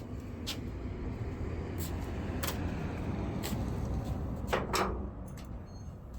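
Car door mirror and its mount being handled and fitted against each other: rustling with a few light clicks, and two louder knocks in quick succession about four and a half seconds in.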